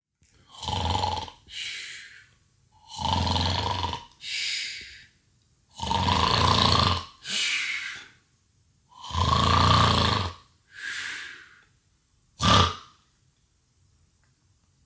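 A person fake-snoring: four loud, rough snoring inhales, each followed by a shorter breathy exhale, about every three seconds. One short, sharp sound comes near the end.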